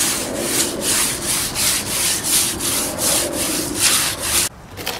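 A sponge rubbed back and forth over a freshly applied cement patch on a foundation wall to smooth it, a scratchy scrubbing in quick strokes about three a second, stopping just before the end.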